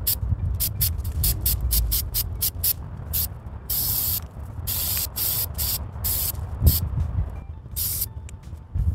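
Rust-Oleum aerosol spray paint can spraying in a string of bursts, quick short ones at first and then longer spurts of about half a second each.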